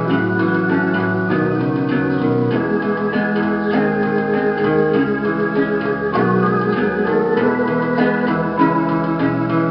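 Two-keyboard electronic home organ playing a melody over sustained chords and a changing bass line.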